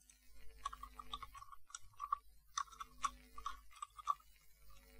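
Typing on a computer keyboard: a quick, uneven run of keystroke clicks with a couple of short pauses.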